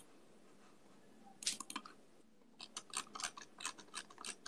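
Computer keyboard typing: faint, rapid, irregular key clicks, a short run about a second and a half in, then a longer, denser run from about two and a half seconds in.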